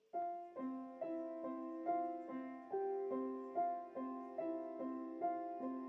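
Background piano music, single notes struck at an even pace of about two a second.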